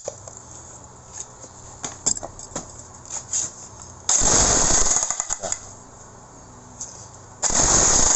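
Dongcheng electric demolition hammer switched on in two short bursts, the second shorter than the first, as a test run after repairing its hammering mechanism. Small handling clicks and knocks come between the bursts.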